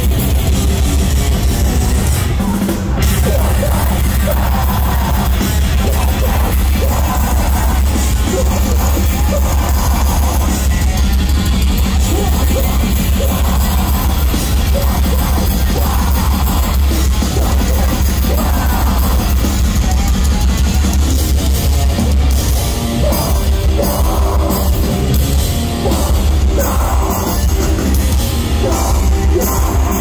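Metalcore band playing live at full volume: drum kit, heavy distorted electric guitars and screamed vocals, heard from within the crowd.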